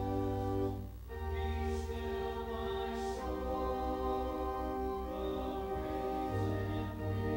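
Congregation singing a hymn with organ accompaniment: held organ chords over a sustained pedal bass. The chord changes about a second in after a brief break, again a little after three seconds, and near the end.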